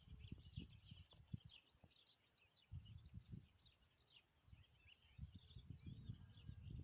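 Near silence outdoors, with faint scattered bird chirps throughout and soft low knocks and rumble.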